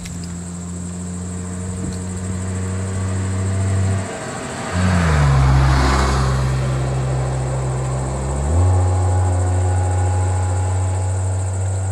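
Vehicle engines idling in a steady low drone whose pitch steps down about five seconds in and back up near the end, with a vehicle driving past around the middle.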